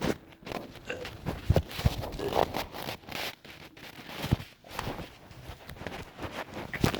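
Wet, sputtering farts: an irregular string of short crackly bursts and pops, with a few brief squeaky notes, loosened by castor oil.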